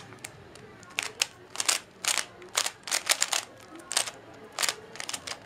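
Plastic 3x3 speedcube being turned quickly by hand during a solve: its layers clack in quick, irregular clusters of clicks, several a second.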